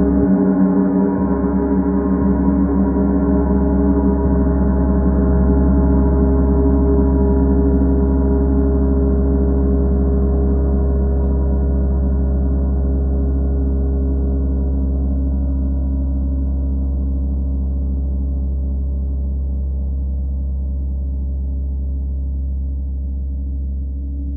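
Paiste symphonic gong ringing in a dense, sustained wash of many overlapping tones, gradually dying away as its highest overtones fade first.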